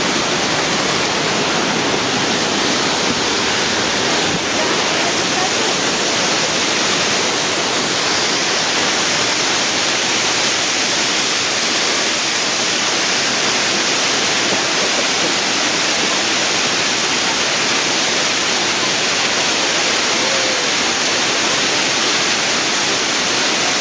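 Peguche waterfall: a steady, loud rush of falling water.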